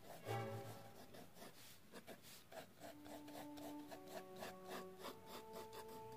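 Mechanical pencil scratching across sketchbook paper in short, quick shading strokes, a few a second, faint under soft background music.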